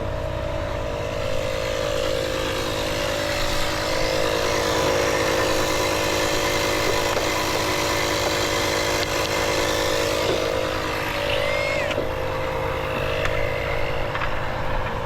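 Highway traffic passing close by: a steady rush of tires and engines with a constant hum underneath, swelling in the middle as vehicles go past.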